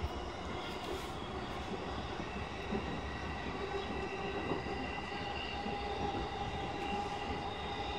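JR East E233-series electric train running along the line, heard from inside the front car: a steady rumble of wheels on rail with several steady high whining tones over it, one of them growing stronger about five seconds in.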